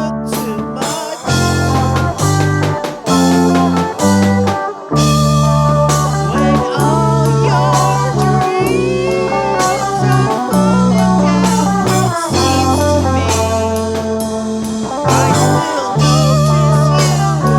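Instrumental guitar solo in a blues-rock song: a lead guitar playing bent and wavering notes over bass and drums.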